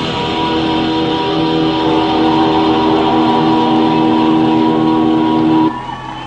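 A rock band's final chord held and ringing out on distorted electric guitars, a steady sustained drone that cuts off abruptly near the end. After it comes a much quieter murmur of voices.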